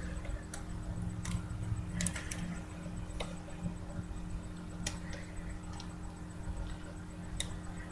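Scattered light clicks and faint rustling of a trading card being handled, about a click a second, over a steady low hum.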